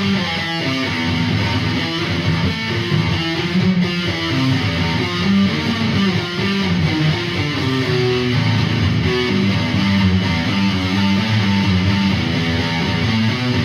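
Guitar playing in a live jam: a steady, loud run of changing notes, weighted toward the low end.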